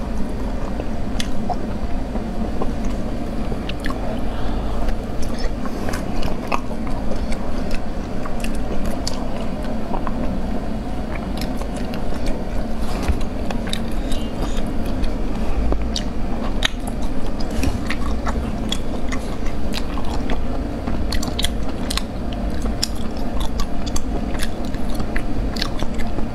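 Close-miked chewing and biting of snail meat, with many small wet mouth clicks and smacks scattered throughout.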